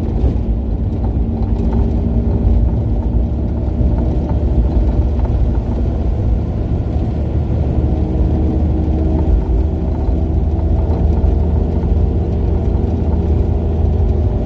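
Nash Metropolitan's small four-cylinder engine running with road noise, heard inside the cabin while cruising: a steady low drone.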